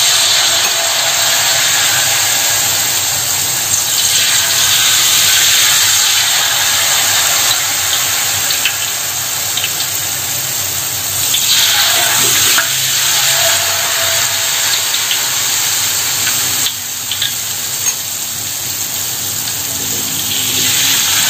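Peyek batter (rice-flour batter with peanuts) sizzling as it deep-fries in hot oil in a large wok: a steady hiss that swells and eases, growing louder again near the end as another ladleful of batter goes in.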